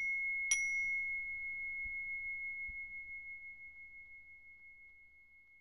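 A bright, bell-like chime struck about half a second in, just after a first strike, ringing one clear high tone that slowly fades away over several seconds.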